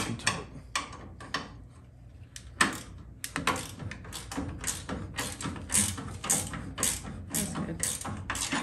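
Irregular sharp metallic clicks and clinks from bolts and hardware being worked by hand at a brake booster's firewall mounting: a few in the first second and a half, a short pause, then about two or three a second.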